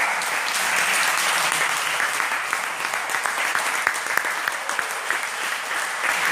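A small audience clapping steadily, the separate claps distinct, at the end of a table tennis match.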